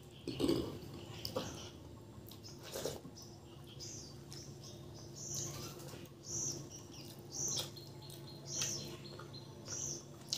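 Eating by hand: chewing and a few sharp wet smacks from a meal of rice, dal and fish, the loudest about half a second in. From about four seconds in, a small bird chirps repeatedly, a short high call about once a second.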